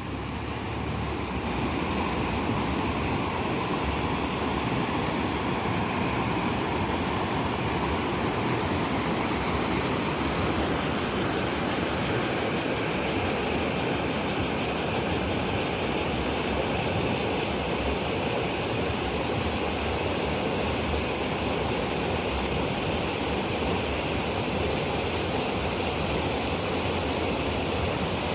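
Steady rush of the Kanda River's water flowing fast, running high just after a typhoon has passed.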